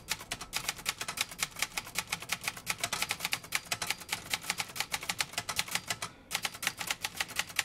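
Brother 200 manual typewriter being typed on: a fast, even run of key strikes, the typebars hitting the platen one after another, with a short pause about six seconds in before the typing resumes.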